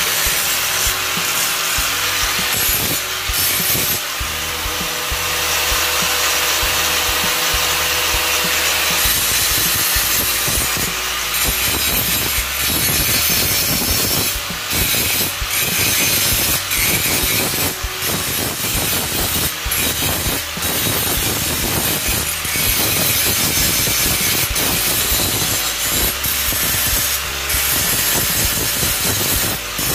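Angle grinder grinding rust off the steel blade of a bolo, a continuous loud grind with many short dips as the disc is worked along the blade.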